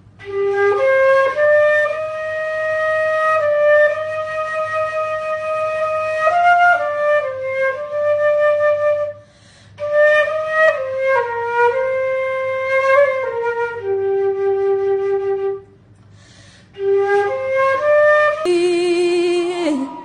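Solo concert flute playing a slow melody of long held notes, with two short pauses between phrases. About a second and a half before the end it cuts abruptly to a woman singing a held note with vibrato.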